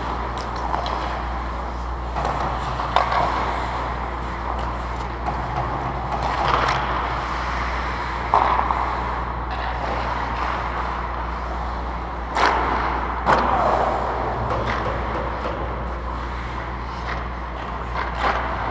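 Ice hockey rink sound: a steady low hum with a hiss of skates on ice, broken by several sharp clacks of sticks and puck, the loudest about 8, 12 and 13 seconds in.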